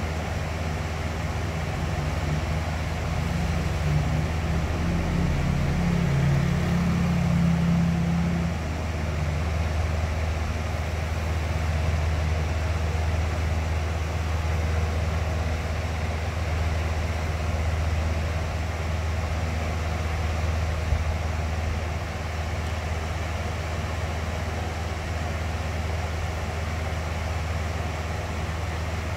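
Electric box fan running steadily: an even whooshing rush of air over a deep motor hum. For several seconds near the start an extra low hum rises and the sound swells slightly, then it settles.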